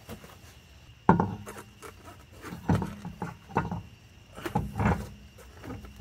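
Car wheel and tyre being handled and fitted onto the hub's wheel studs: a sharp knock about a second in, then several softer knocks as it is worked into place.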